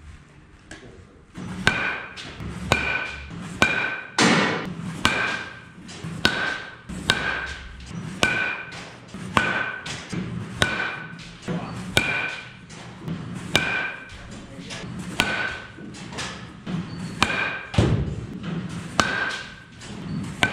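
Marucci CAT 9 Composite youth baseball bat striking balls again and again: a sharp crack about once a second, many with a brief ringing tone after the hit.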